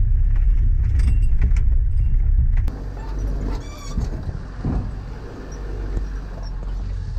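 Inside a four-wheel-drive's cabin on a rough dirt track: a steady low rumble from the engine and drivetrain, with rattles and clicks from the body. About two and a half seconds in the rumble drops to a quieter level, and leaves and branches brush along the side of the vehicle.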